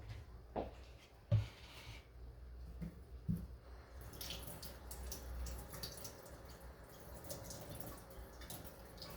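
A few knocks of containers being set down, the loudest about a second and a half in, then tap water running and splashing into a sink from about four seconds on.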